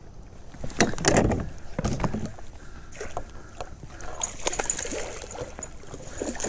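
A hooked smallmouth bass splashing at the surface beside a kayak, with water sloshing and knocks against the hull. The loudest splashes come about one and two seconds in, followed by smaller, choppier splashing.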